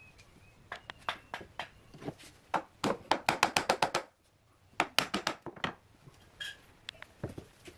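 Sharp knocks and clicks on a glued-up pine tabletop and its pipe clamps as it is handled and adjusted. Scattered at first, then a quick run of about eight knocks a second around the middle, a short pause, another brief run, and a few more near the end.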